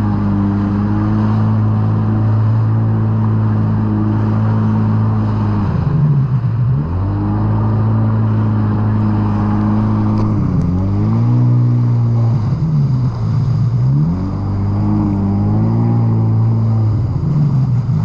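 Jet ski engine running steadily at cruising throttle, its pitch dropping and climbing back several times as the throttle is eased and reopened, over the rush of water along the hull.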